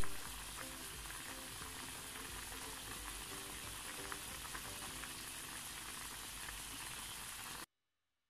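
Pot of squid and vegetable broth boiling on the stove: a steady bubbling hiss with small pops, cutting off suddenly near the end.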